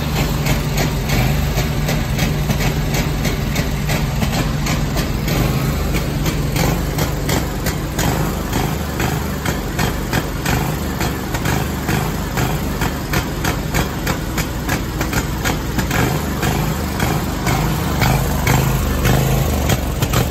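Scag Tiger Cat II zero-turn mower engine running rough and uneven, with sharp ticks several times a second at an irregular beat. The uploader blames a weak battery for the bad running.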